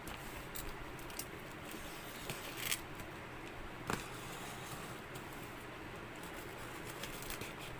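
Hands handling and rubbing over a cardboard parcel wrapped in plastic film and tape, with a few sharp scrapes and clicks, the clearest about a third and halfway through, over a steady background hiss.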